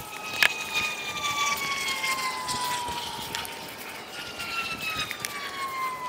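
A distant siren wailing, its tone sliding slowly down in pitch twice, with a sharp click about half a second in.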